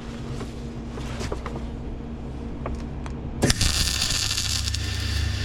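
MIG welder's low hum with a few faint ticks, then about three and a half seconds in the arc strikes with a sudden loud crackle that carries on steadily. The weld is being laid on a steel harvester pin with water seeping out of it, which makes the arc run badly.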